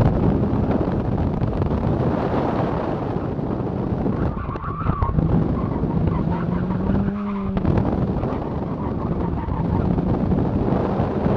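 Mazda RX-8's rotary engine working hard through an autocross course, heard through heavy wind noise. The tyres squeal briefly under hard cornering about halfway through.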